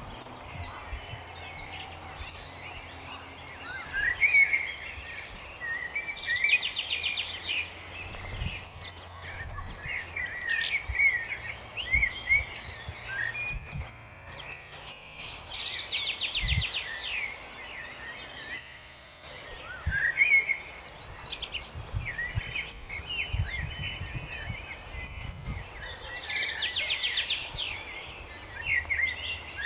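Several songbirds singing together, with many short chirps and whistles and one rapid trilled phrase repeated about every ten seconds. A low rumble with occasional dull thumps runs underneath.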